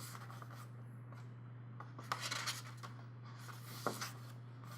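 Paper pages of an album booklet being handled and turned, with soft rustles about two seconds in and again near four seconds, over a low steady hum.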